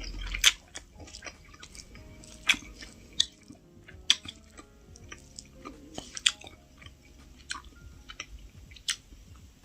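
A person chewing a mouthful of spam fried rice, with sharp wet smacks and clicks at irregular intervals of about a second or two.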